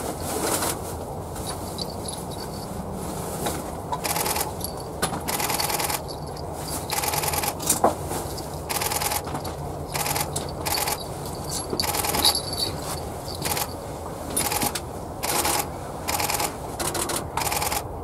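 Camera shutters firing in continuous bursts, short rapid runs of clicks repeated many times at irregular gaps.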